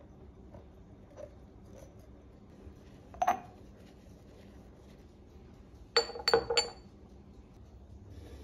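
Empty glass jars clinking as they are handled on a granite countertop: one clink about three seconds in, then three quick clinks near the end.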